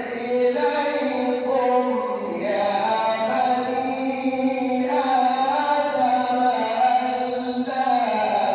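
A male reciter chanting the Quran in melodic tajweed style, holding long notes that step from one pitch to another.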